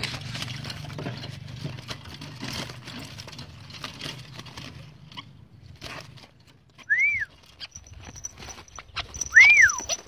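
Rustling and clattering with scattered clicks, then two short whistles that rise and fall in pitch, about seven and nine and a half seconds in, the second one louder.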